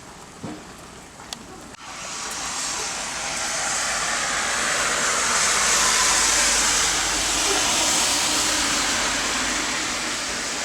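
A loud rushing hiss that swells up about two seconds in, peaks midway with a low rumble beneath it, and eases off slowly.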